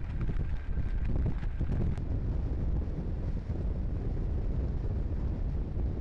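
Wind buffeting the microphone, with a steady low rumble typical of being out on a ship at sea.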